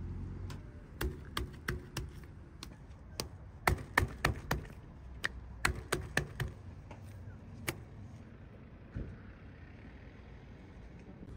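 A knife chopping on a cutting board: about twenty sharp, irregular chops, some in quick clusters, that stop a few seconds before the end.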